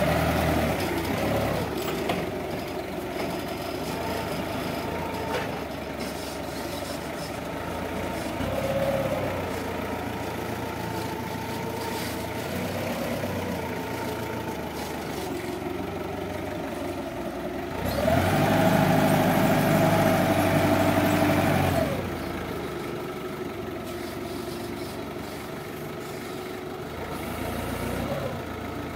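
Linde forklift engine running as the truck drives and manoeuvres, its pitch rising and falling a little. For about four seconds roughly two-thirds of the way in, the engine revs up and runs noticeably louder and steadier before dropping back.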